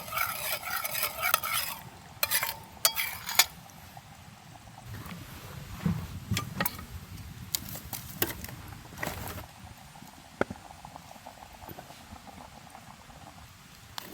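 A utensil stirring and scraping in a vessel for about two seconds, then a few sharp clinks, then scattered light taps and soft rustling.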